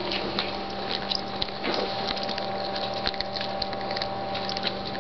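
A small dog chewing a piece of chicken, with quick irregular wet clicks and smacks.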